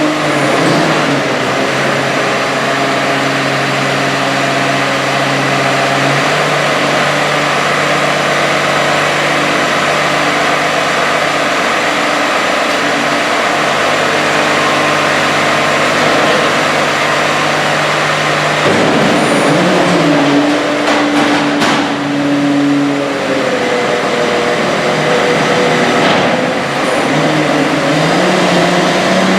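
Diesel engine of hay-harvesting farm machinery running steadily. Its pitch shifts several times, with a gradual rise near the end.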